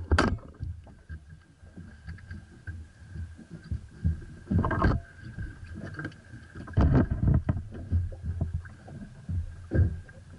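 Small wooden boat under way: an uneven low rumble with a faint steady whine, broken by louder rushes of noise about halfway through, at about two-thirds and near the end.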